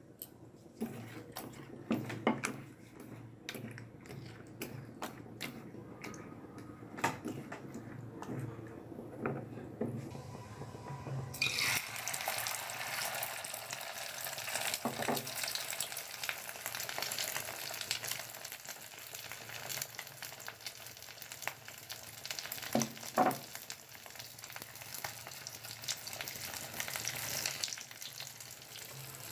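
Egg and sliced onion being beaten in a steel bowl, a utensil clicking rapidly against the metal. About eleven seconds in, the mixture goes into hot oil in a frying pan and sizzles steadily, with an occasional knock of a utensil against the pan.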